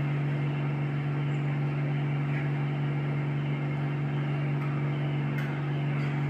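Steady low machine hum, one constant pitched tone with fainter overtones and a light hiss above it, unchanging throughout.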